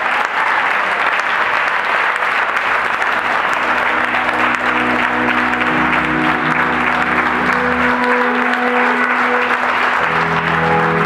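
Audience applauding, with instrumental music of held notes and a low bass line coming in underneath after a few seconds.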